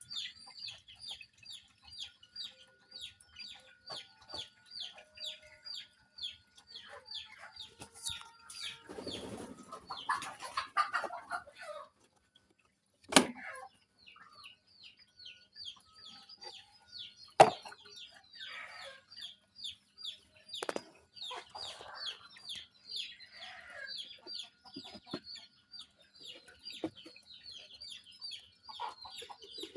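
Chickens: a long run of short, high chirps about three a second, with clucking, and a few sharp knocks, two of them loud.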